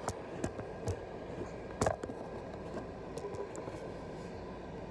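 Handling noise of a phone being picked up and moved: a few sharp knocks and taps, the loudest just under two seconds in, then softer rubbing, over a steady low hum.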